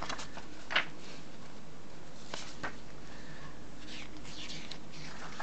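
Pages of a paperback art book being turned by hand: a few short paper flicks and rustles, the sharpest one just under a second in, with more around the middle and near the end.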